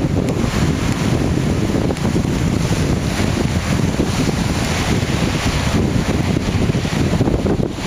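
Wind buffeting the microphone: a loud, steady, gusting rumble with no other distinct event standing out.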